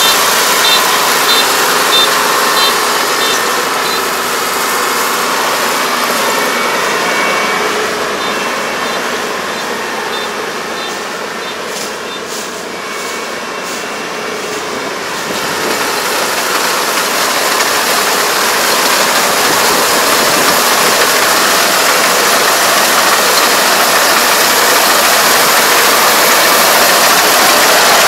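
Iseki ER470 rice combine harvester running with its cutting and threshing machinery working. The sound fades as the machine moves away, is quietest about halfway through, then grows steadily louder as it comes back toward the microphone.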